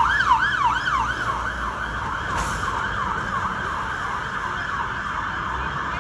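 Fire engine siren sounding a fast yelp, its pitch sweeping up and down about three times a second, loud at first and then fading, over low road-traffic rumble.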